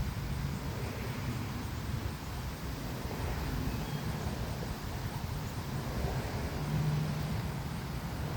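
Wind buffeting the microphone: a steady, uneven low rumble with a hiss of outdoor background over it.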